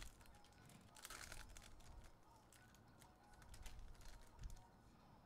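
Faint crinkling and tearing of a foil trading-card pack wrapper being torn open by hand, in two short spells.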